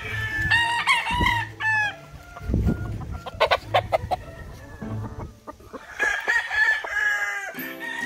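Gamefowl roosters crowing and clucking: short calls in the first two seconds and one long held crow about three-quarters of the way through.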